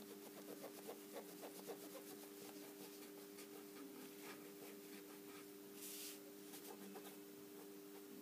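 Faint, quick scratchy strokes of a cotton swab dipped in acetone being rubbed against the skin and nail edge, mostly in the first two seconds, over a steady low hum. A brief hiss comes about six seconds in.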